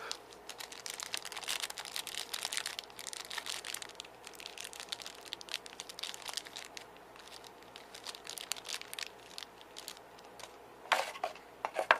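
Packaging crinkling and rustling as it is handled and unwrapped, in a run of small crackles, with a few louder handling noises near the end.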